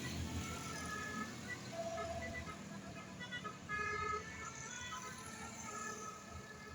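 A bus's low engine rumble fading away, with faint short notes from telolet musical bus horns scattered through, most around four seconds in.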